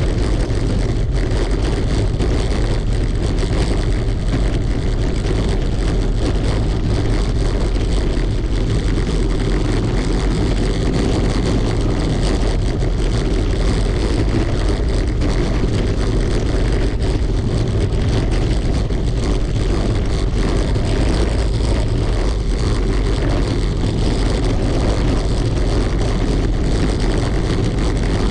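Continuous rumble and rattle of a bicycle riding over cobblestones, the vibration picked up by a camera mounted low on the bike.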